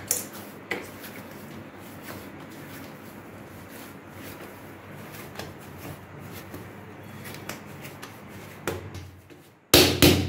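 Soft paratha dough being kneaded by hand on a stone counter: scattered rubbing, pressing and light slapping sounds, with two louder slaps just before the end as the dough is patted down.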